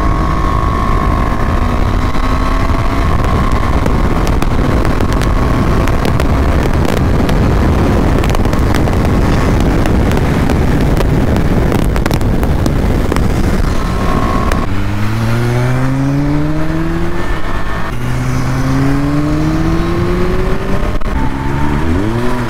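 Motorcycles at riding speed, with heavy wind rush on the microphone for most of the time. About two-thirds of the way in, a motorcycle engine accelerates hard, its pitch rising and dropping back in steps through two or three upshifts.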